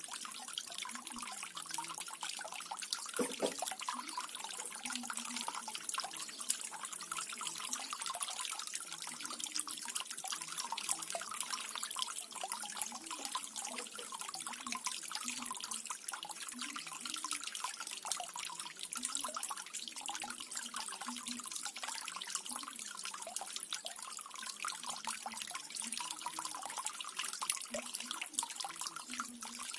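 Small waterfall running steadily: water splashing and trickling, with a dense patter of droplets and irregular low gurgles.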